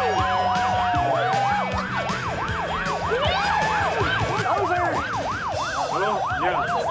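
Ambulance siren sounding in a fast yelp, rising and falling about three to four times a second. Near the start and again about three seconds in, the yelp gives way to a slower single sweep.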